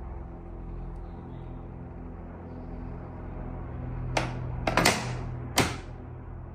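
Bambu Lab A1 3D printer with a SwapMod automatic plate changer running: a steady motor hum carrying several pitched tones, then four sharp clacks between about four and six seconds in.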